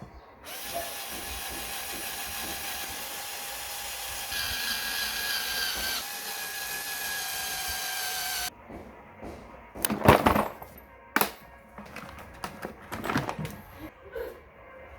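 A power tool runs steadily for about eight seconds, its pitch shifting a couple of times, then stops abruptly. Several sharp knocks and clatter follow.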